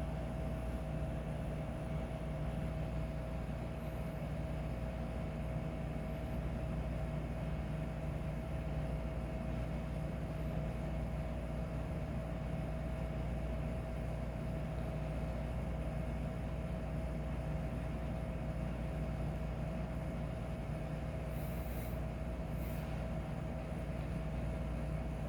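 A steady low hum with a constant tone running through it, unchanging in level, with no breathing rhythm.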